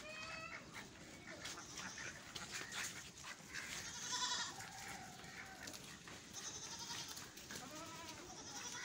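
Goats bleating, a few faint calls spread through, with pitched, wavering tones.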